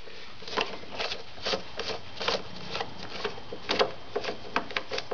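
Light irregular clicking and ticking, about three a second, as a T30 Torx bit driver is turned by hand to undo a bolt on the headlight assembly's top mounting.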